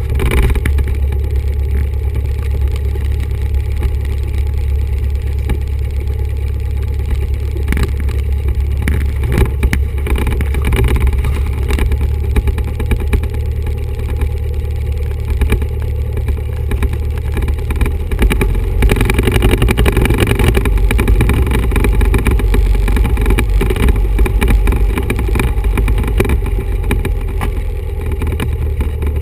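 1974 Cessna 172's Lycoming O-320 four-cylinder engine and propeller running at taxi power, heard from inside the cockpit as a steady, vibration-laden rumble. About 19 seconds in the engine note changes and grows a little louder for several seconds as power is added.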